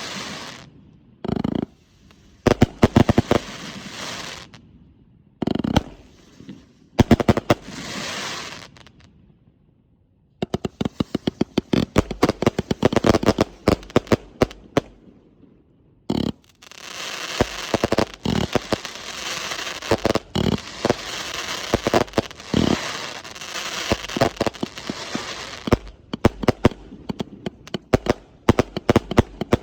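A 341-shot consumer firework cake firing: quick runs of sharp shots alternating with long stretches of dense crackling. There are short pauses between volleys and a brief lull about ten seconds in.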